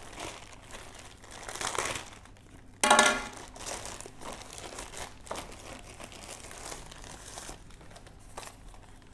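Plastic courier mailer bag crinkling as it is cut and pulled open, with a loud short rip about three seconds in. Near the end, paper wrapping rustles as a box is slid out.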